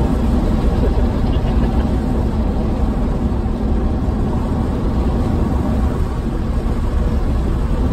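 Steady low road and tyre rumble inside the cabin of a Tesla Cybertruck on the move.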